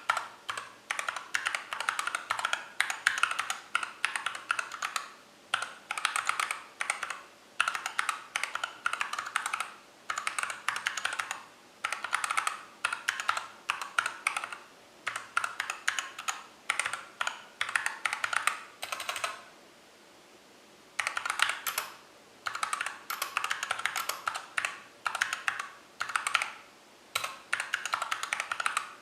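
Mechanical keyboard with Everglide Crystal Violet switches and Tai-Hao Cubic profile keycaps being typed on in quick, continuous runs of keystrokes. There is a short pause about twenty seconds in.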